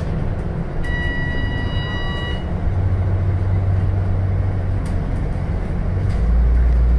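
Cabin noise of a Scania K320UB route bus on the move: its 9-litre turbo diesel and the road make a steady low drone, which deepens and grows louder near the end. About a second in, a steady electronic beep sounds for about a second and a half.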